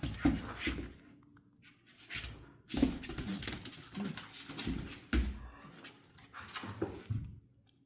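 Dogs making a run of irregular noisy bursts with low thumps, starting and stopping several times.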